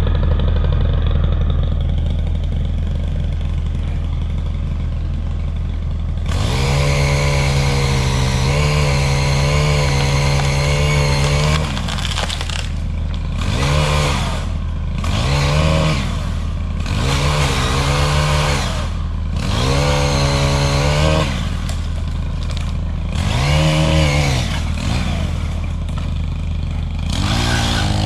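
Two-stroke gas pole saw idling, then revved in repeated short bursts from about six seconds in as it cuts limbs overhead.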